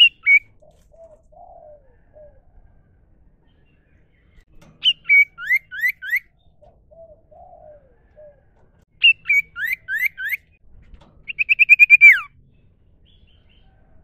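Common iora (cipoh/sirtu) singing. A short sharp call opens it. Twice comes a phrase of a high note followed by about four quick rising whistles, and near the end a fast trill of about a dozen notes that drops away in a downward slur. Soft, low warbling notes sound between the phrases.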